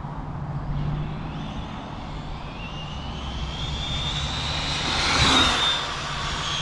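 Arrma Felony 6S RC car's brushless electric motor and drivetrain whining at high speed, the pitch rising as it accelerates and loudest as it passes about five seconds in, then easing off.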